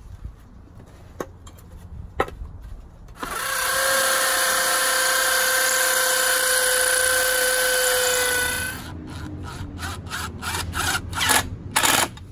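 Craftsman V20 cordless drill in hammer mode boring into a concrete block wall through a redwood furring strip, running steadily with a whine for about five seconds. A cordless impact driver follows, rattling in short bursts as it drives a fastener into the wall.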